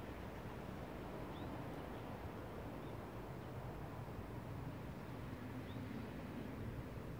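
Steady low rumble of wind outdoors, with two faint, brief high chirps: one about a second and a half in and another near six seconds in.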